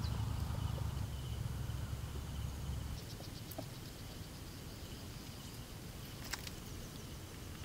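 Faint insect chirping, a thin trill, over a low rumble that fades after about three seconds; a single sharp click comes near the end.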